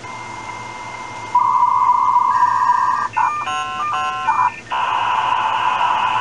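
US Robotics V.90 56K external modem's speaker playing the dial-up handshake as it connects: steady high tones that step to new pitches, then about three seconds in a chirping run of several tones that break off and restart, then from about five seconds in a loud steady hiss as the two modems train up for data.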